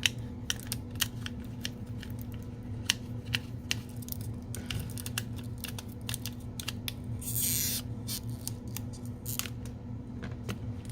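Small repair tools clicking and tapping against an iPhone 6s while prying under the battery to get hold of its adhesive strip, with a short scraping hiss about seven seconds in. A steady low hum runs underneath.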